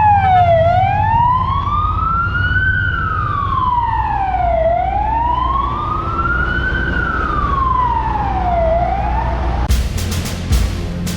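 Emergency vehicle siren on a slow wail, rising and falling about every four seconds over a low engine rumble. The siren cuts off near the end, and a run of sharp clicks follows.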